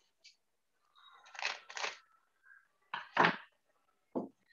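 Cellophane tape being pulled off its roll and stuck down, in a few short ripping bursts, the loudest about three seconds in.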